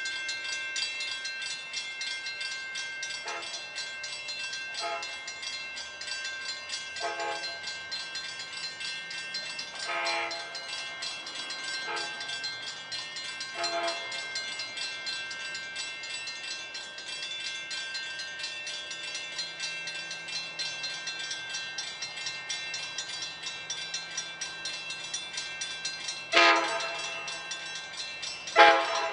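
Approaching locomotive's horn sounding short blasts in the distance, with two louder blasts near the end as the train draws closer, over a steady ringing tone.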